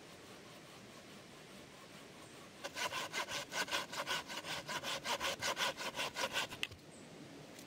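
Curved pruning saw cutting through a wooden stick: after a few seconds of faint background hiss, quick even back-and-forth strokes, about five a second, for about four seconds, then they stop abruptly.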